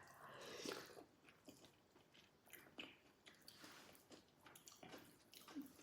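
Faint chewing: soft, irregular mouth clicks and small crunches of someone eating.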